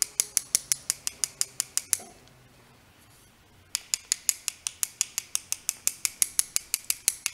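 One paintbrush tapped rapidly against another to flick watercolour drops onto paper: a fast, even run of sharp clicks, about seven a second. The tapping pauses for about a second and a half around two seconds in, then starts again.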